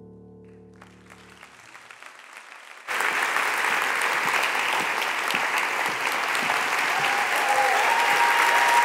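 Held notes of music die away in the first second and a half while faint clapping rises. About three seconds in, loud audience applause starts abruptly and carries on steadily.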